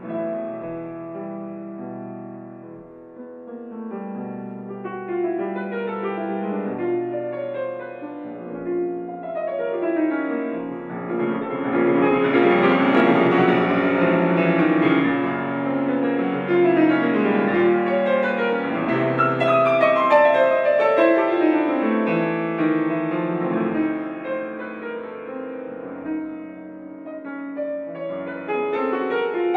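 Grand piano played solo in a dense, many-voiced passage that swells from a quieter start to a loud climax in the middle, eases off near the end, then builds again.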